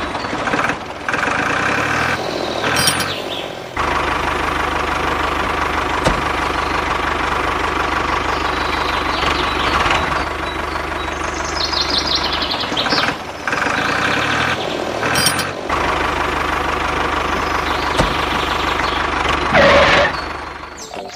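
A motor running steadily, sounding like an engine, broken by several abrupt cuts.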